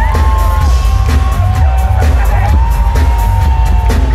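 Loud live electronic pop music over a concert sound system: a heavy pulsing bass under a sustained synth lead whose notes slide up and down.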